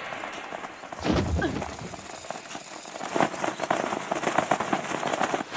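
Cartoon sound effects: a low thump with a short cry about a second in, then a dense, crackling clatter of many flapping wings as a flock of crows flies in.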